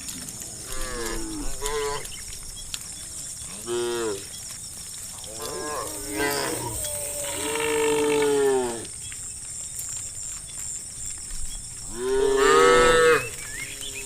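Cows mooing: about five separate calls with bending pitch, one long drawn-out moo in the middle and the loudest call near the end.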